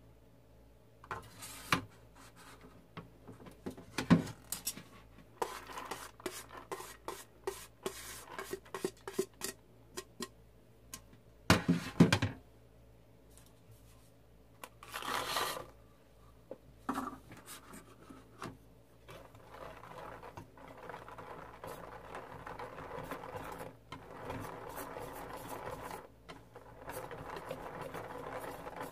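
A wire whisk clinking and scraping against a stainless steel mixing bowl while mixing cake batter, with several sharp knocks on the bowl, the loudest about four and twelve seconds in. From about twenty seconds in, a steady scraping swish as the batter is stirred again.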